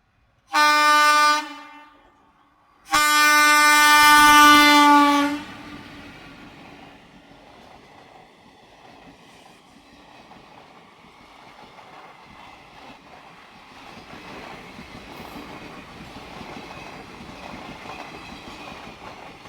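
Indian Railways express train sounding its horn twice, a short blast and then a longer one. The train's running noise follows and grows louder toward the end.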